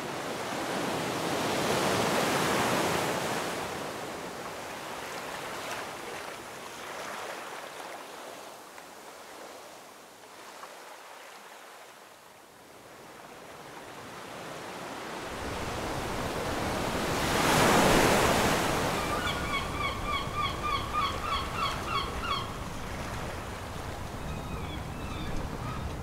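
Ocean waves washing in, with two larger surges about two seconds in and again past the middle. Just after the second surge a bird calls in a quick run of short, repeated notes for a few seconds, and starts again near the end.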